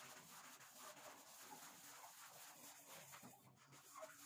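Near silence: faint room tone with a few soft rubbing sounds.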